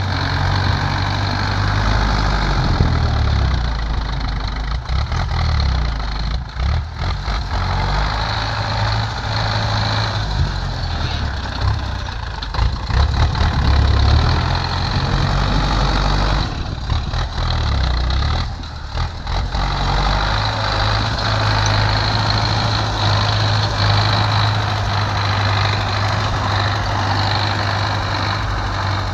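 Diesel engines of heavy earthmoving machinery running, the low engine note shifting up and down with the work and holding steadier over the last third.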